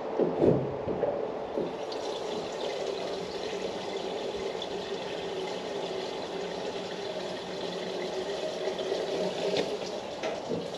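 Diesel pouring steadily from a jerry can into a vehicle's fuel tank, a continuous liquid rush with a hollow tone from the filling tank.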